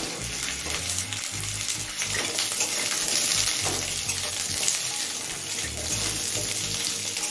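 Diced potatoes sizzling steadily as they fry in hot mustard oil in an aluminium kadai, with a spatula stirring and scraping them against the pan toward the end.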